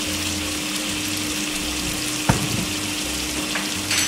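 Tomato, onion and garlic sauce sizzling and bubbling in a non-stick wok as a silicone spatula stirs it, a steady hiss with a low hum underneath. A single sharp tap about two seconds in.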